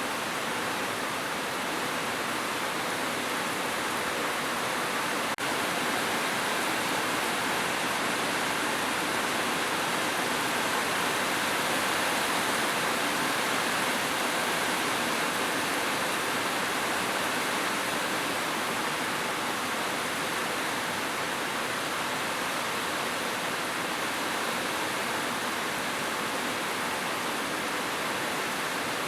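Heavy rain falling steadily on a roof, an even, unbroken hiss of drops.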